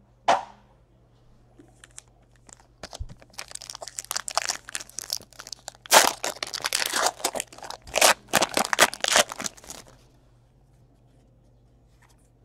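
Plastic wrap being torn and crinkled off a box of trading cards, with a dense run of crackling and tearing from about three seconds in to about ten, loudest in the middle. There is a brief sharp knock just after the start.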